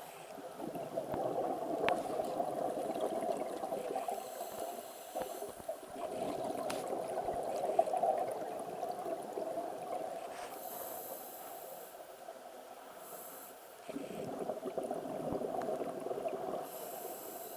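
Muffled underwater sound of a swimmer's breathing and bubbling water, heard through a camera. It comes in long swells of a few seconds each, with quieter gaps between, and a few faint ticks.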